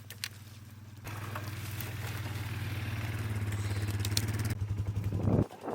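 A vehicle engine running steadily. It steps up about a second in, grows louder, then breaks off suddenly near the end.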